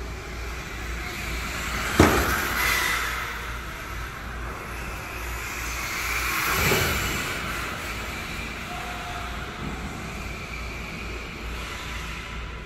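Radio-controlled cars driving on an indoor track, with two close passes where the sound swells and bends in pitch, about two and about seven seconds in. A single sharp knock, the loudest moment, comes about two seconds in.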